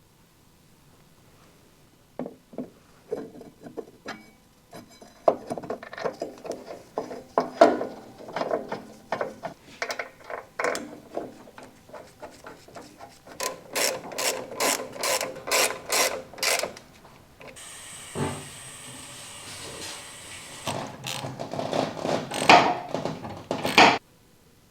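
Socket ratchet clicking in short runs and then a quick steady run of clicks, as fasteners on a brake caliper are worked. Partway through there is a steady hiss lasting about three seconds.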